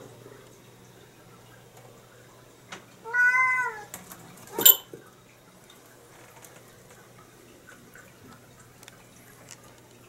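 A domestic cat meows once about three seconds in, a single call of under a second that rises and then falls in pitch. A second later comes one short sharp click, the loudest sound.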